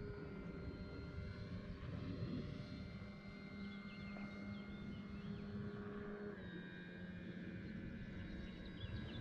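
E-flite Carbon-Z Cessna 150T electric RC airplane in flight: a steady whine from its motor and propeller over wind noise, with the pitch shifting about six seconds in.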